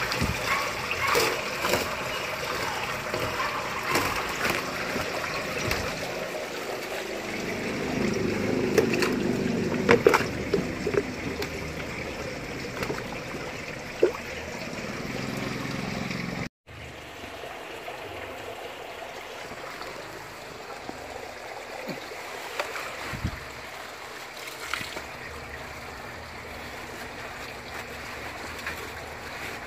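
Water splashing and churning in an aquaponics fish tank as red tilapia thrash in a net, with a few sharp splashes. About halfway it cuts off abruptly and a quieter steady hiss follows.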